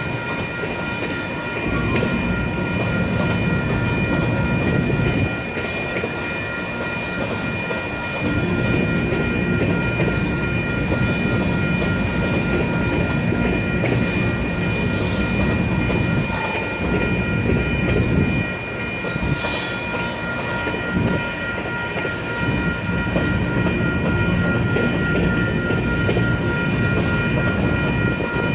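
Grain hopper cars of a long freight train rolling slowly past, wheels rumbling and clanking over the rail joints, the rumble swelling and easing as cars go by. A steady high-pitched squeal of wheel flanges grinding on the curving track runs under it.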